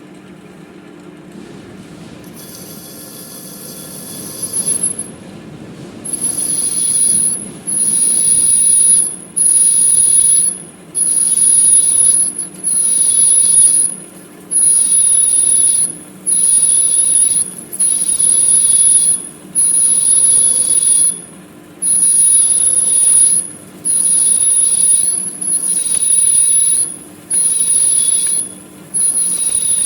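A manual lathe cutting metal. A steady motor hum builds over the first few seconds, then the cut gives a loud, high-pitched squeal that starts and stops in regular bursts, about one every second and a half.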